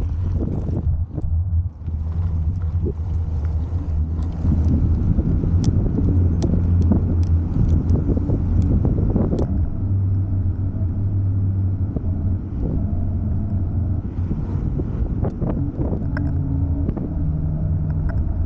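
Wind buffeting the microphone and road rumble while riding an electric scooter, with scattered clicks and rattles.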